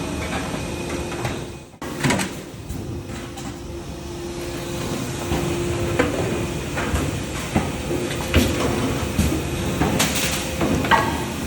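Factory floor noise: a steady machine hum with scattered metal knocks and clanks.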